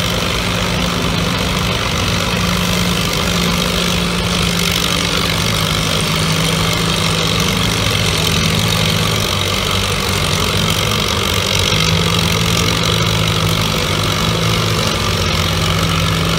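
Engines of two vintage Allis-Chalmers tractors hitched in tandem, running steadily at idle while hooked to the pulling sled before the pull.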